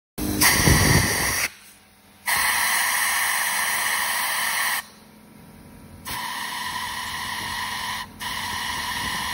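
A nozzle hissing into the jets and passages of a 1993 Kawasaki KX250 carburettor while it is being cleaned. The hiss comes in four bursts of a second or two each, and the first has a low rumble under it.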